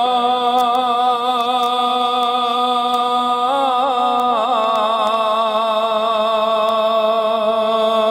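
A man singing a naat, holding one long note, with a wavering ornament about halfway through before the note settles and is held again.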